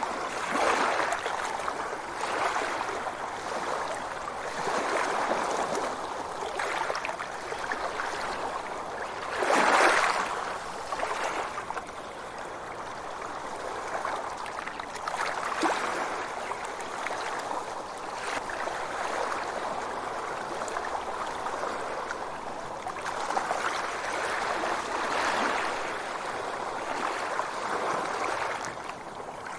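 Sea waves washing ashore, the rush of water swelling and ebbing every few seconds, with the biggest surge about ten seconds in.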